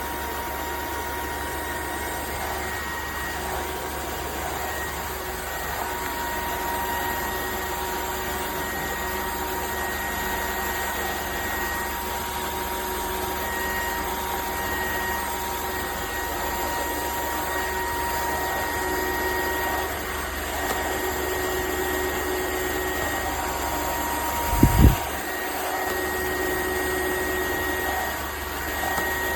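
Dreame H12S cordless wet-dry vacuum running steadily, a steady high whine over the noise of its motor. A brief low thump about three-quarters of the way through.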